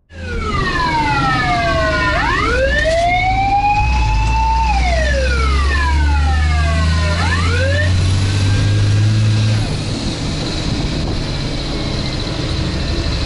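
Fire truck's siren sweeping slowly down and up in long wails, heard from inside the crew cab over the steady drone of the truck's engine. The siren stops about eight seconds in, and the engine and road noise carry on.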